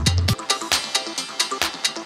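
Electronic background music with a steady beat; the heavy bass drops out about a third of a second in, leaving the beat and higher tones.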